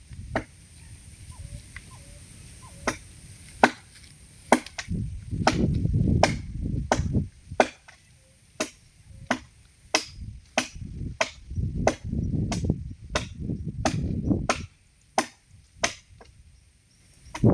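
Repeated sharp chopping strikes on wood, irregular at about one to two a second, with bursts of low rumble in between.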